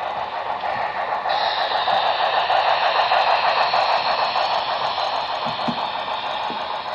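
Model steam locomotive of Texas & Pacific 610 with its freight cars running past on layout track: a steady noisy running sound of motor and wheels, swelling to its loudest about two to three seconds in as the engine goes by.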